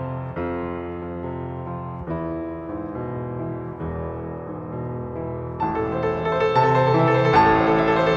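Slow background piano music: held chords that change every second or two, swelling louder and fuller about two-thirds of the way through.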